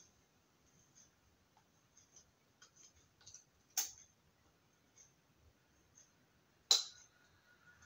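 Light taps, scrapes and clicks of a craft stick and a small plastic eyeshadow pot being worked over a clear plastic slime tub as the powder is scraped out, with two sharper plastic clicks, one about four seconds in and one near the end.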